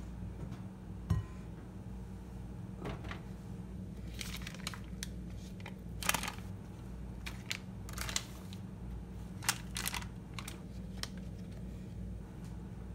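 Butter's paper wrapper crinkling and crackling in short bursts as a stick of butter is peeled out of it onto cut sweet potatoes, over a steady low hum. There is a dull knock about a second in.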